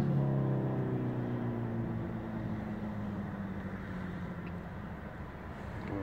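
A motor vehicle's engine, its pitch sinking slowly as it fades over the first few seconds, leaving a low steady hum.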